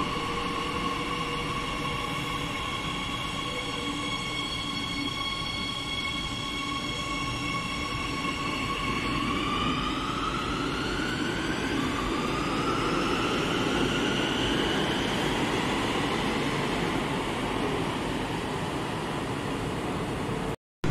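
Madrid Metro Series 8000 electric train pulling out of an underground station. It gives a steady electronic whine from its traction inverters over a rumble. From about 9 s in, the whine splits into rising tones as the train gathers speed.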